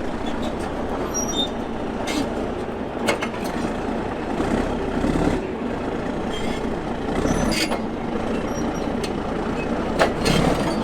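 Heavy diesel machinery running steadily, with a few sharp knocks scattered through.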